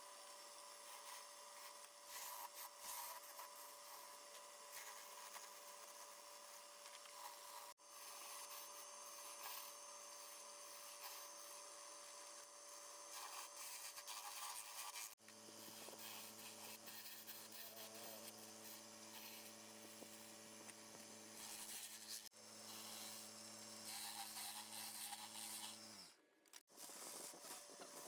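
Faint steady motor hum with scratchy rubbing and hiss, broken off abruptly several times where clips are cut together.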